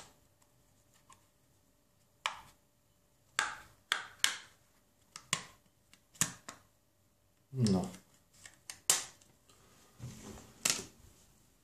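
Snap-on plastic back cover of a Samsung Galaxy J5 phone being pried off by hand: a run of sharp, irregular plastic clicks and snaps as its clips let go.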